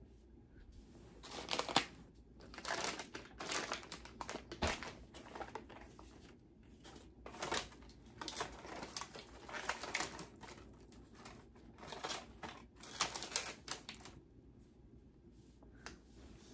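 Plastic snack packets crinkling and rustling as they are picked up and handled, in irregular bursts with short pauses, dying down near the end.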